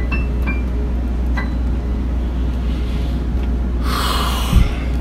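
A steady low hum, with the last few notes of music dying away in the first second and a half. About four seconds in comes a sharp, forceful breath lasting under a second, then a low thump.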